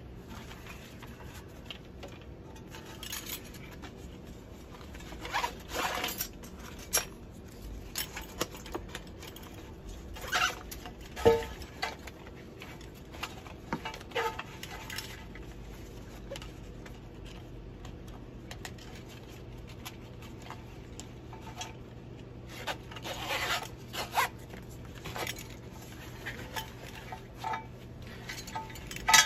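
Nylon harness webbing rustling and sliding through the slots of a metal scuba backplate in short, scattered bursts as the waist belt is threaded on, with one sharp click partway through.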